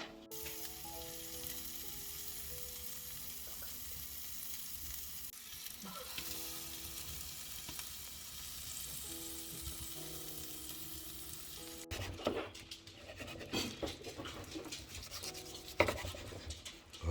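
Food sizzling steadily in a pan over soft background music, cut off abruptly about twelve seconds in; then irregular clicks and knocks of kitchen handling.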